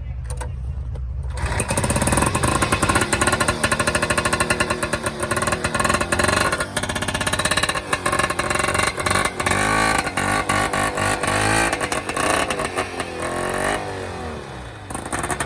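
Vintage Arctic Cat ice-racing snowmobile's two-stroke engine: a low rumble, then about a second in it comes up loud and is revved again and again, its pitch rising and falling. It drops back briefly near the end before picking up again.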